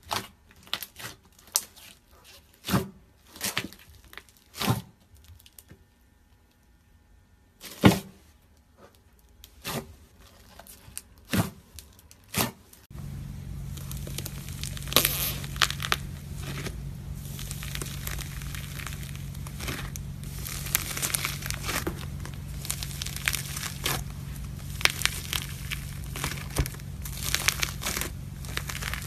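Hands working slime: sparse sharp pops and clicks as a hand presses thick fluffy slime, then from about 13 seconds in dense crackling and crunching as fingers press into slime packed with small beads, over a steady low hum.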